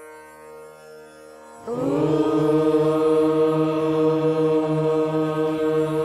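Devotional prayer music. A soft steady drone, then about one and a half seconds in a much louder long chanted note begins, sliding up slightly before holding steady.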